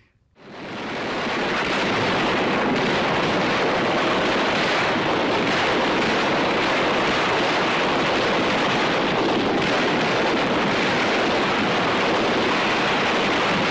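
A steady, loud rushing noise with no distinct bangs or rhythm, fading in over the first second and beginning to fade out near the end.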